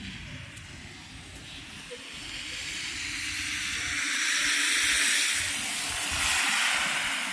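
A vehicle driving past on a snowy street, its tyres hissing: the hiss swells from about two seconds in, is loudest near the middle and again shortly before the end.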